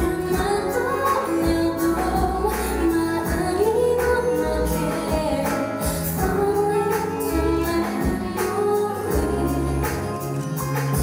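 A woman singing a melodic pop song into a handheld microphone over accompanying music with sustained bass notes and a light, steady percussion beat.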